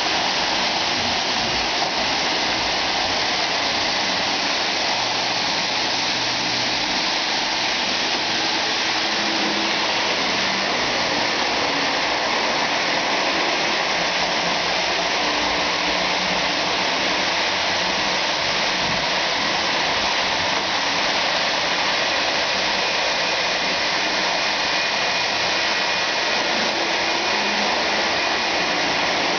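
O-gauge model trains rolling on three-rail track, a steady rushing of metal wheels and running gear with no clear beat; a faint high tone joins in over the second half.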